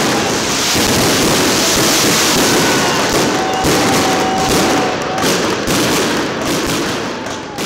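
Fireworks going off in a dense barrage: continuous crackling and popping of bursting shells, with a thin whistle for a couple of seconds in the middle. The noise eases off near the end.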